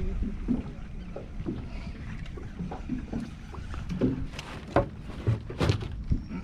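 Water lapping against the hull of a small fishing skiff, under a low rumble, with scattered small knocks. A few sharper bumps come between about four and six seconds in, from gear and the camera being handled in the boat.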